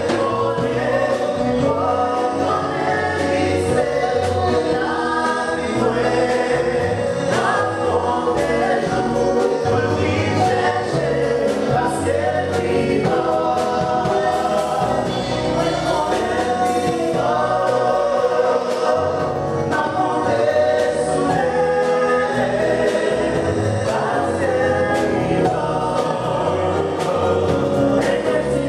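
Gospel vocal group singing together, backed by a live band on keyboards and guitars.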